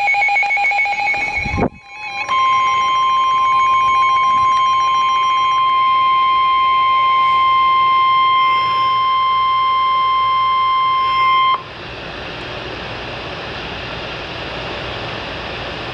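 Emergency Alert System broadcast: a moment of pulsing tones and a brief dropout, then the steady 1050 Hz weather-radio alert tone for about nine seconds, the signal of an incoming severe thunderstorm warning. It cuts off sharply into radio static hiss.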